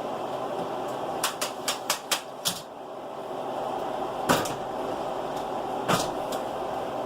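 Clicks and knocks from handling things in a kitchen: a quick run of about six clicks, roughly four a second, then two louder knocks about a second and a half apart, over a steady background hum.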